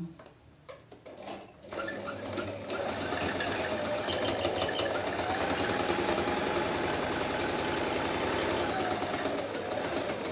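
Electric domestic sewing machine stitching a seam through jacket fabric. A few clicks and knocks come as the fabric is set under the needle. Then the machine runs steadily from about two seconds in, speeding up in the middle and slowing again near the end.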